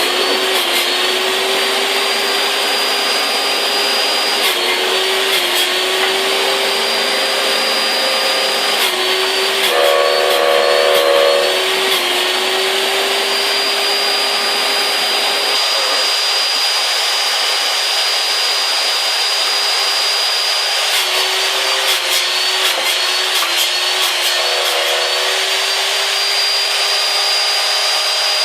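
Electric wood-cutting machine running with a steady high whine, its pitch sagging briefly every few seconds as it takes load. A louder, rougher stretch comes about ten seconds in.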